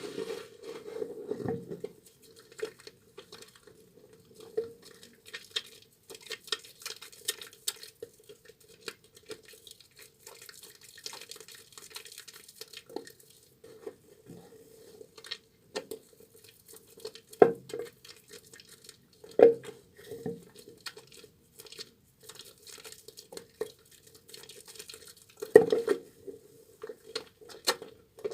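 A soaked, mushy bar of tar soap being lathered in wet hands: irregular sticky squelches and small clicks, with rubbing at the start and a few louder wet smacks later.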